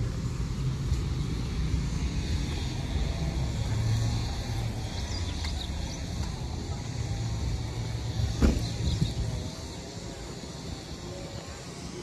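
Road traffic: a vehicle's low rumble swells about four seconds in and fades away by about ten seconds, with a single sharp knock shortly before it fades.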